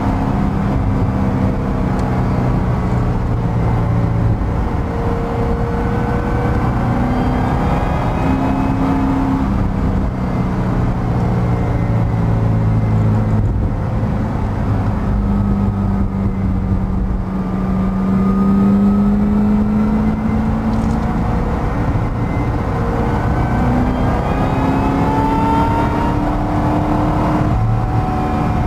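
Supercharged V8 of a Callaway C16, heard from inside the cabin while driving. The engine note climbs and drops several times as the car accelerates and eases off, over steady road and wind noise.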